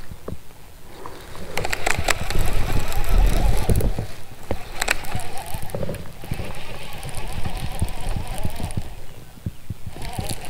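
Wind rumbling on the microphone, with a few sharp clicks and knocks from handling a baitcasting rod and reel in a kayak.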